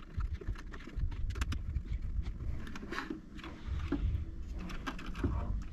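Hands taking apart a Bambu Lab AMS filament unit: scattered light clicks and knocks of small screws, a hex key and plastic housing parts being handled, over low handling rumble.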